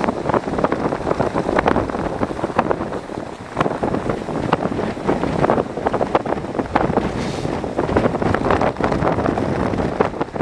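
Storm wind buffeting the microphone in frequent gusts, over heavy surf breaking and washing across rocks.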